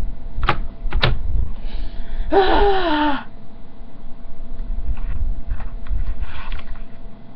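Two sharp clicks, then a short, breathy whimper that falls in pitch, about a second long, from a young woman's voice.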